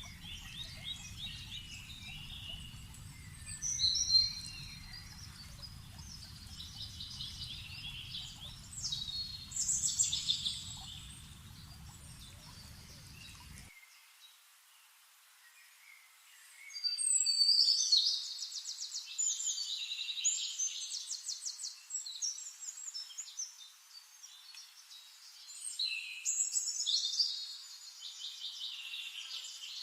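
Forest birdsong: several songbirds calling with chirps and rapid trills, the loudest bursts about four, ten, seventeen and twenty-six seconds in. A low background rumble stops abruptly about fourteen seconds in.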